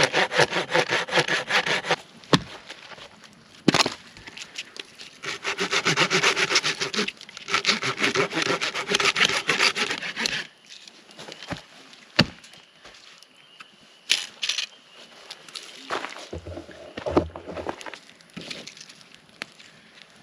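Hand saw cutting through wood in three runs of fast, even back-and-forth strokes, ending about ten seconds in. A few sharp knocks and snaps of wood follow.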